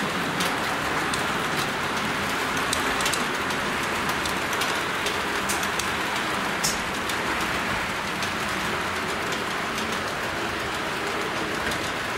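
H0-scale (1:87) model train, a long rake of Eurocity coaches, rolling along the layout's track: a steady rushing hiss of wheels on rails with scattered sharp clicks.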